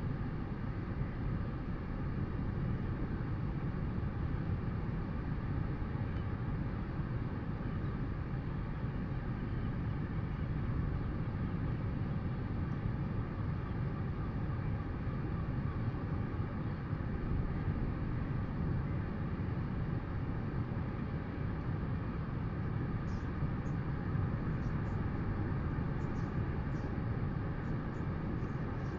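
Steady low rumble of wind on an outdoor webcam microphone, with a faint steady electrical hum above it. A few faint high ticks come near the end.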